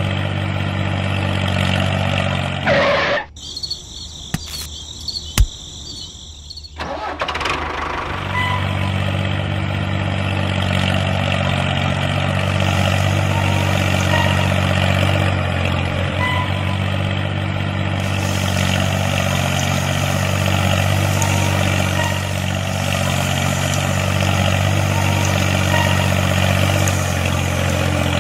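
Steady low diesel-tractor-like engine running sound for the mini tractor pulling its cultivator through sand. It drops out for a few seconds about three seconds in, with a single sharp click in the gap, then runs on steadily.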